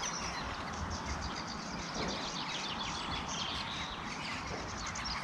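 Several small birds chirping and singing at once, quick short notes overlapping throughout, over a steady low rumble.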